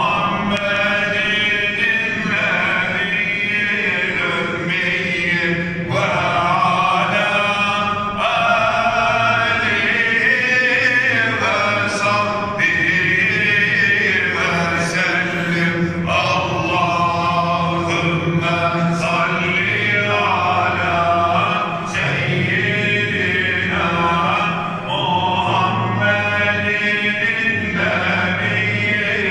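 A man's voice chanting an Islamic religious recitation in long melodic phrases that waver and bend in pitch, with short pauses for breath, echoing through a domed mosque prayer hall.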